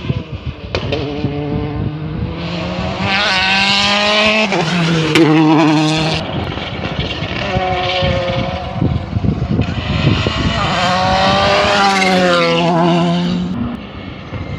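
Rally car engine running hard along the stage, its pitch climbing through the revs and dropping back again several times as it changes gear and slows for corners, with short sharp pops along the way. It fades somewhat near the end.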